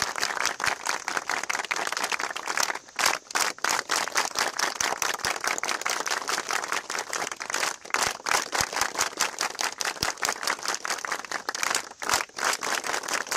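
A large group of people clapping their hands in quick, steady unison. The clapping breaks off briefly about three seconds in and again near the end.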